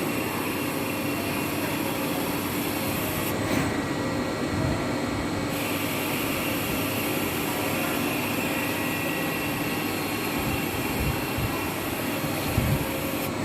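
Steady mechanical running noise with a low hum and a high hiss; the high hiss drops out for about two seconds a few seconds in.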